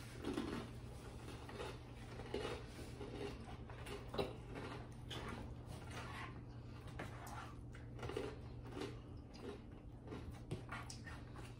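Several people chewing and smacking their lips while eating, with scattered soft clicks of forks against plates and bowls, over a steady low hum.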